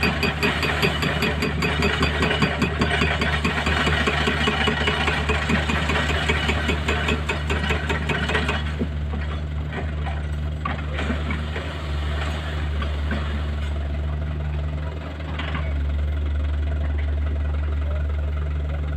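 Excavator diesel engine running under load, with a dense rapid clatter over it. About halfway through it drops back to a steady idle.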